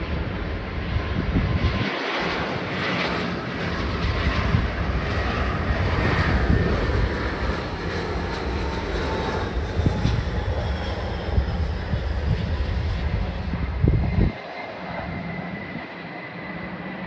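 Airbus A319-132's IAE V2500 turbofan engines running on final approach and through touchdown, a steady jet roar with a faint whine that falls slowly in pitch past the middle. Uneven low rumbling runs underneath, and the sound drops suddenly about fourteen seconds in.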